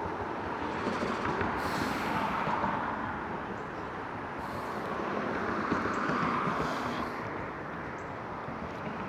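Road traffic passing: a steady rush of tyre and engine noise that swells twice, about two and six seconds in, as vehicles go by.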